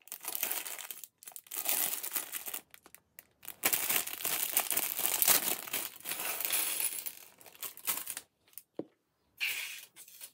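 Plastic LEGO polybag crinkling and tearing as it is handled and ripped open, in irregular bursts. A few brief clicks near the end as the loose bricks land on the table.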